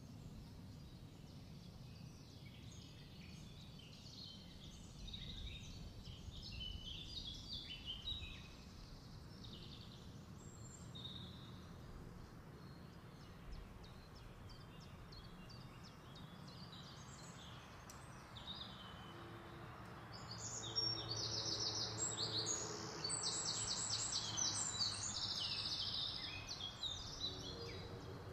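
Birds chirping in the background, with faster trilling runs louder about two-thirds of the way through, over a steady low hum.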